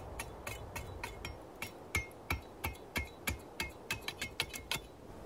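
Machete blade knocking down into a stick of wood on a chopping block, splitting it into kindling. It makes a run of sharp knocks, lighter at first, then stronger at about three a second, each with a brief metallic ring.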